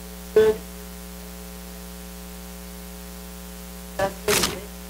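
Steady electrical mains hum with its stack of overtones in the sound system. A brief short sound comes about half a second in, and near the end a short pitched sound is followed by a papery rustle as the Bible's pages are turned.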